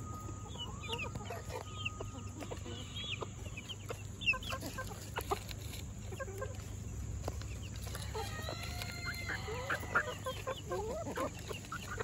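Silkie chickens clucking and chirping with short, scattered calls while they feed on rice. The calling gets busier, with several birds at once, about two-thirds of the way through.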